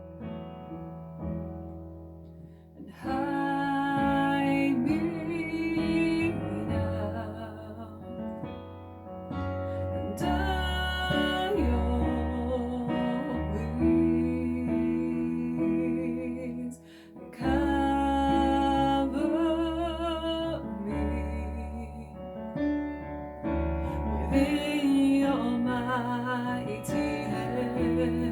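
Music: a hymn or worship song with piano. Soft piano notes open it, and a singing voice with accompaniment comes in about three seconds in.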